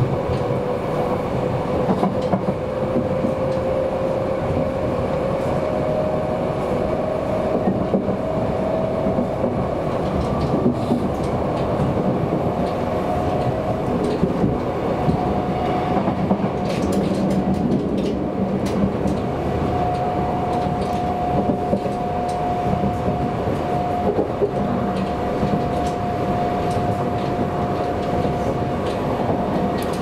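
Kintetsu commuter train running, heard from inside the carriage: steady rolling noise with a tone that rises slowly in pitch through the first half and then holds steady, and wheels clicking over rail joints.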